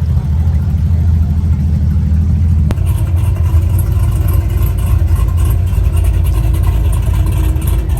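Car engine and road noise: a steady low drone that changes abruptly nearly three seconds in.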